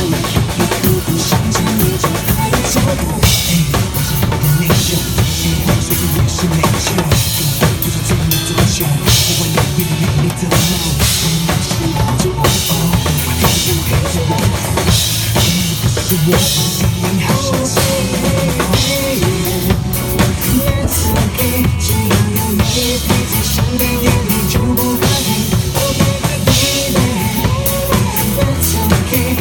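Instrumental break of a pop song: a full drum kit keeps a steady beat with bass drum and snare, and from about halfway through a melody instrument comes in over it.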